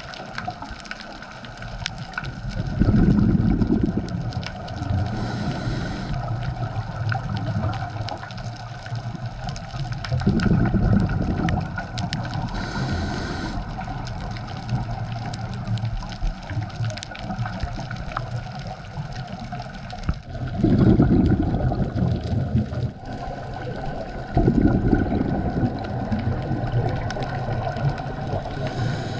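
A scuba diver breathing through a regulator underwater: four low, gurgling rushes of exhaled bubbles several seconds apart, with short hisses of inhalation between some of them.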